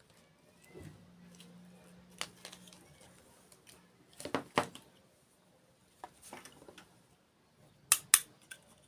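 Close-up eating sounds: sharp, crisp crunches and clicks in small clusters, a pair about halfway through and another pair near the end, with a faint low hum for a couple of seconds near the start.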